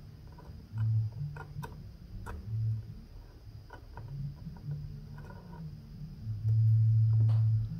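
Small Torx screwdriver turning screws back into a DRO glass-scale reader head, with light, irregular metallic ticks and clicks. Under it is a low hum in held notes that change pitch, the longest and loudest near the end.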